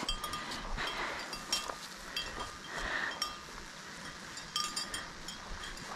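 Light, scattered metallic clinks and jingles from the hardware on a tracking dog's harness and lead as the dog moves along, with soft steps in the grass.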